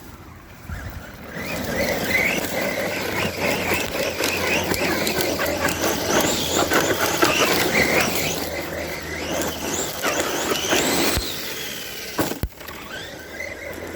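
Redcat Shredder RC monster truck running hard: a high electric-motor whine that rises and falls as the throttle is worked, over a rough rattling of wheels and chassis. It starts about a second in and drops away near the end.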